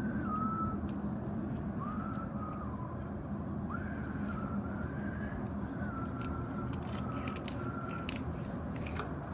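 A person whistling a tune in short phrases with brief pauses between them, over a steady low hum. Scattered light clicks come in the second half.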